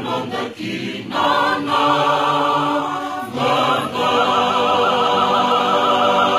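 Fijian church choir singing a hymn in several voice parts. About halfway in it settles on a long held closing chord, with a high voice wavering in vibrato on top.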